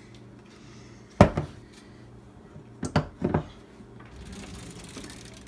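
Plastic blender jar knocked against the countertop: one sharp knock about a second in, then two more close together near the middle, over a steady low hum.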